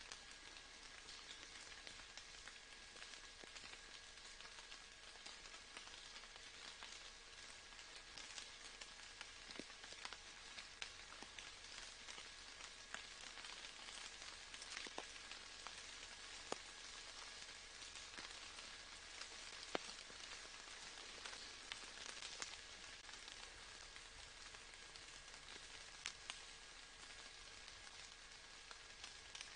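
Faint steady rain, a soft even hiss with scattered louder single drops landing, over a faint steady hum.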